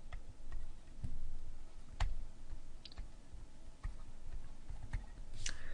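Scattered light clicks, roughly one a second and unevenly spaced, some with a soft low thump, over faint room hiss.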